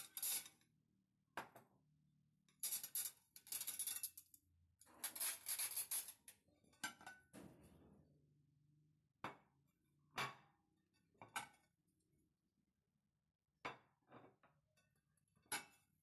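Clear glass plates and ceramic bowls clinking as they are lifted off a stack and set down on a glass tabletop. Rattling bursts of clinks come in the first six seconds, then single sharp clinks every second or two.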